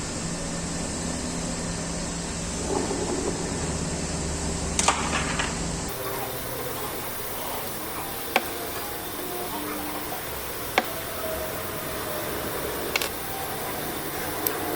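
A small workshop machine's motor runs with a steady hum for about six seconds and stops abruptly. After that come four or five sharp metal clinks a couple of seconds apart, as of tools and parts being set down or tapped.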